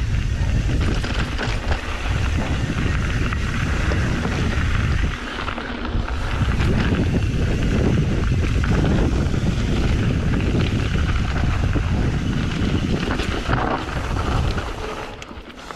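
Wind buffeting the action camera's microphone on a fast mountain bike descent, mixed with the tyres crunching over gravel and rock and the bike rattling. It eases briefly about five seconds in and drops off near the end.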